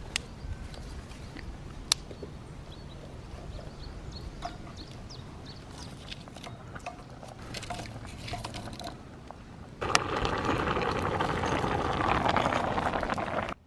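Dry sticks snapping with a few sharp cracks and light wooden clatter as they are broken and fed into a samovar's firebox. About ten seconds in, a big pot of rice at a rolling boil bubbles and hisses loudly, then cuts off abruptly.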